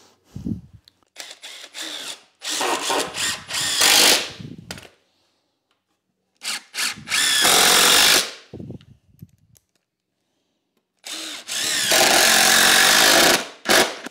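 Cordless drill-driver driving screws into a 2x4 timber frame in three bursts of a few seconds each, with short pauses between.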